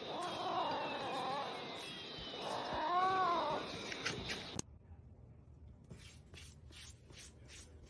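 A cat yowling: a wavering, drawn-out cry, then a second cry that rises and falls. It cuts off suddenly a little past halfway, leaving faint regular ticks about twice a second.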